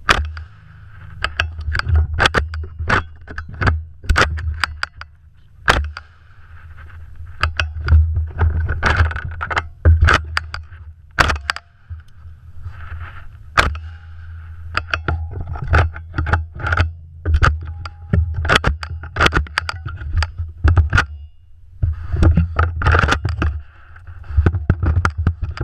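Saiga semi-automatic shotgun fired over and over through a shooting stage, sharp loud shots in singles and quick pairs with short pauses between strings, over a steady low rumble.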